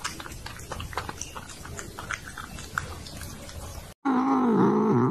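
A cat lapping water from a glass: quick, wet clicking laps. About four seconds in it gives way to a louder, wavering growl-like vocalisation from a kitten biting a hand.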